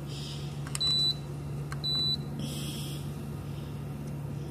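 Two short high beeps from a hotel-room air conditioner's control panel as its temperature-down button is pressed twice, lowering the setting in cool mode; each beep follows a light click of the button. A steady low hum runs underneath.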